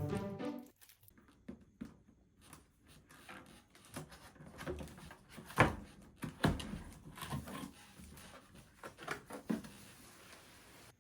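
Background music fades out within the first second, leaving quiet, scattered clicks and knocks in a small room, with two louder knocks a little past the middle.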